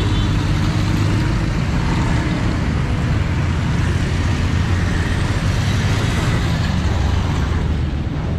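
Busy road traffic, mostly motor scooters and motorcycles with a few cars and vans, passing close by in a steady stream of engines running and tyre noise.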